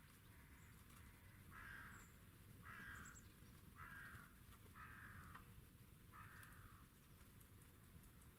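Faint series of five harsh caws from a corvid, each about half a second long, repeated roughly once a second.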